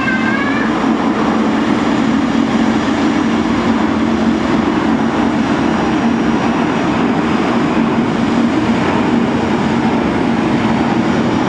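Jet airliner engines running at taxi power, heard as a loud, steady drone.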